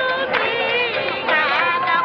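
Singing with wavering, sliding pitch, several lines at once in places, over a steady held note, on a dull early sound-film recording.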